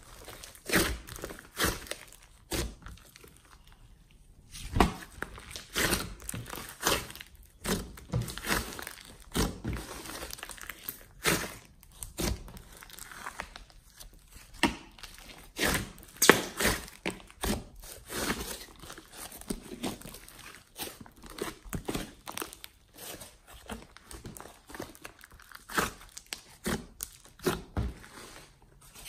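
Hands squeezing and kneading a large mass of glossy slime mixed with clay, making irregular wet pops, clicks and crackles, several a second, with a short lull about three seconds in.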